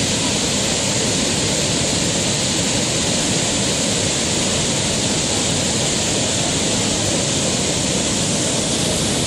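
Fast-flowing river water rushing steadily and unbroken, with no separate splashes or knocks standing out.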